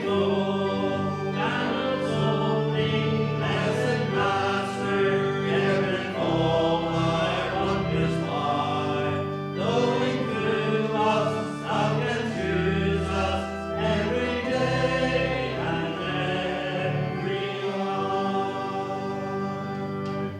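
A hymn sung by many voices together, with sustained instrumental accompaniment.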